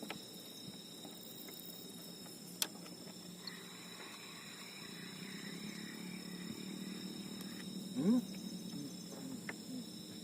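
Night insects, crickets among them, keeping up a steady high-pitched chorus of several unbroken tones. A sharp click comes about two and a half seconds in, and a short rising sound about eight seconds in stands out as the loudest thing.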